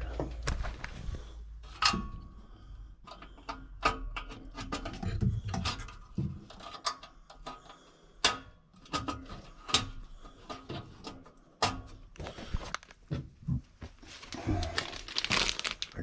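Irregular clicks, knocks and light rattles of hands and tools handling parts and wiring inside a gas furnace's sheet-metal cabinet.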